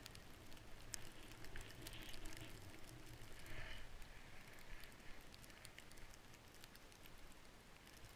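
Faint hiss and crackle of skis gliding through deep powder snow, with scattered small clicks.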